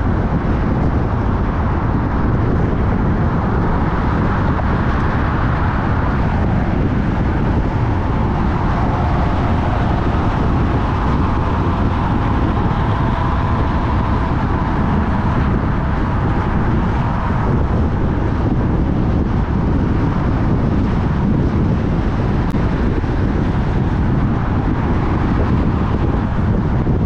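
Car driving on city roads: steady road and engine noise, with some wind on the microphone.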